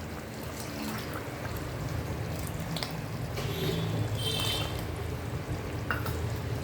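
Ground coconut paste being poured from a jar into a pot of simmering curry, a wet pouring and trickling with a few small knocks, over a steady low hum.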